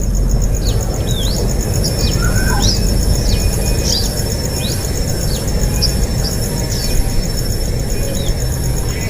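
Small birds chirping: many short, high, sweeping chirps, a few each second, over a steady high insect trill and a constant low rumble.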